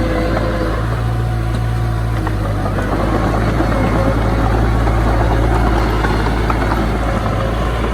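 Diesel engine of earthmoving machinery running steadily, a loud low drone that swells a little around the middle.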